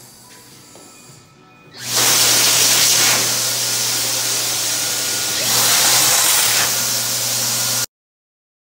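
Dyson Airblade V hand dryer running: a loud rushing of air with a steady low hum starts about two seconds in, dips slightly and swells again midway, and cuts off abruptly near the end.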